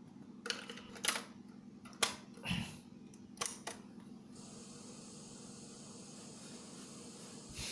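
Plastic clicks and clunks of a cassette being loaded into a Retekess portable cassette player, its door snapped shut and a button pressed. From about four seconds in, a steady hiss of the tape running begins, over a faint low hum.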